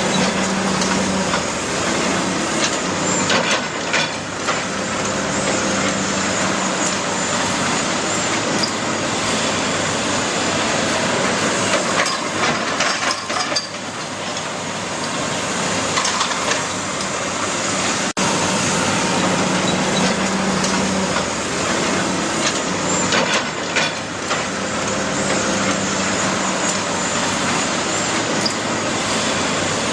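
Heavy demolition machinery working on a building: a diesel engine runs steadily under intermittent knocks and cracking of breaking debris.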